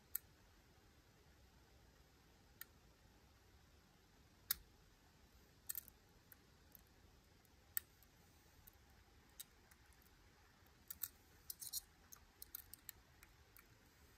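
Lock pick clicking against the pins inside a Miwa U9 lock cylinder: sparse, sharp metallic ticks at irregular times, with a quick run of them near the end.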